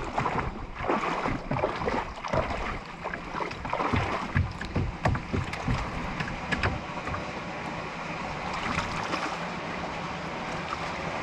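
Splashing and wading through shallow water, with scattered knocks and scrapes as a plastic kayak is hauled over a stony streambed to the mouth of a culvert; the splashes thin out into a steady hiss for the last few seconds.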